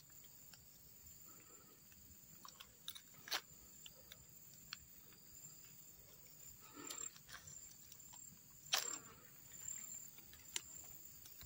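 Faint, scattered rustles and crackles of leaves and twigs in undergrowth, the sharpest about nine seconds in, over a steady high hum.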